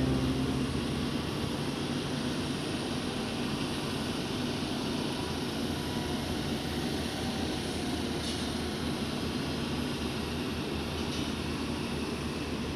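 Steady drone of engines running, like heavy machinery idling on a job site, with no strikes or changes.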